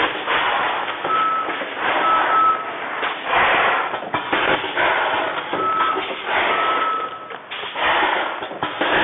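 Vertical form-fill-seal packing machine running: repeated surges of mechanical noise as it cycles through filling and sealing. Short high beeps of one pitch sound several times over it.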